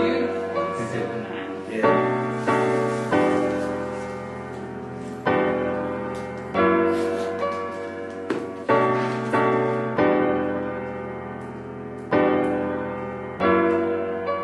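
Slow background piano music: chords struck about every one to two seconds, each left to ring and fade.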